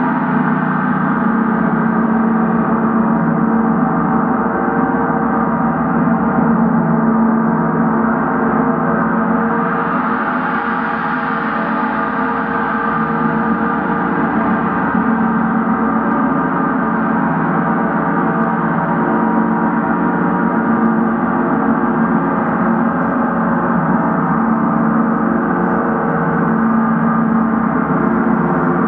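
Several large gongs played continuously with felt-headed mallets, giving a steady, dense wash of many overlapping ringing tones with no single stroke standing out.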